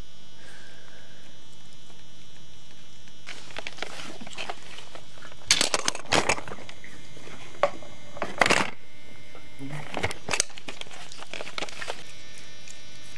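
Short bursts of rustling and crinkling, like paper towel and blanket being handled close to the microphone, come several times over a steady electrical hum.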